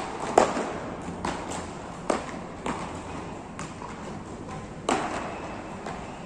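Beach tennis paddles striking the ball in a rally: a series of sharp hollow pocks at irregular intervals of roughly half a second to a second, echoing in a large hall. The loudest hits come about half a second in and near five seconds.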